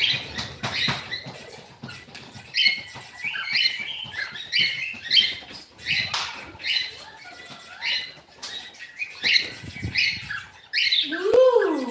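Cockatiel chirping in short, quick notes that fall in pitch, repeated every half second or so, with scattered clicks. Near the end a longer tone rises and then falls in pitch.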